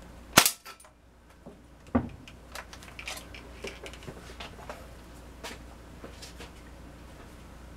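A single shot from a Winchester M14 CO2 pellet rifle: one sharp crack about half a second in, followed by a knock about two seconds in and a scatter of light clicks and knocks as the rifle is handled.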